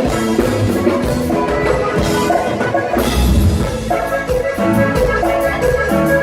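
Norteño band music in an instrumental passage: a melody line over bass and drums.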